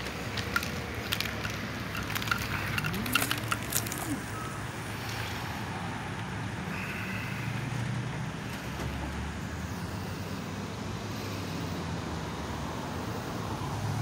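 Parking-lot traffic ambience: a steady low hum of road vehicles, with a quick run of sharp clicks and rattles in the first four seconds.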